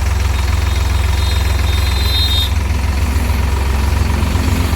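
Diesel engine of a boom crane idling steadily with an even low pulsing beat, a brief high whine about two seconds in.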